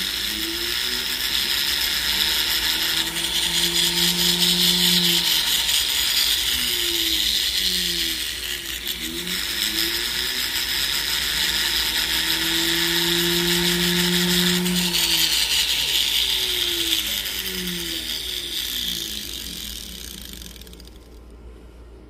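A small rotary tool working on a necklace's solder joint, its motor speeding up, holding, and slowing down twice, with a rasping hiss from the bit or wheel on the metal.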